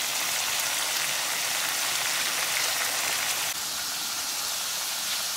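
Potato strips shallow-frying in a single layer of hot oil in a nonstick skillet: a steady sizzle, dropping slightly in level about three and a half seconds in.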